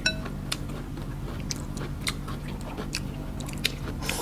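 Eating noodle soup up close: chewing and biting, with scattered small sharp clicks. Right at the start a utensil gives a light ringing clink against a bowl.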